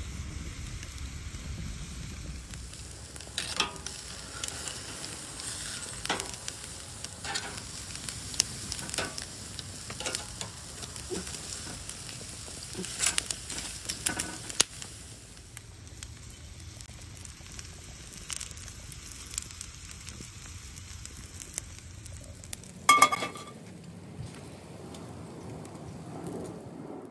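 Thick ribeye steaks sizzling on a charcoal grill grate, with scattered pops and crackles. A sharp ringing clank near the end comes as a cast iron skillet is set on the grate.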